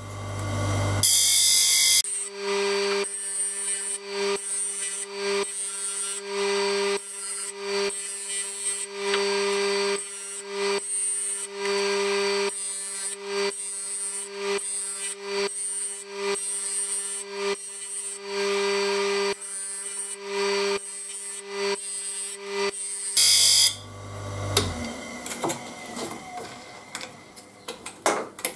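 Electric saw-blade sharpener's grinding wheel grinding the teeth of a circular saw blade one tooth at a time: a rhythmic run of short grinding passes, a little more than one a second. Near the end the grinding stops and the sound dies away into a few light metallic clicks as the blade is handled.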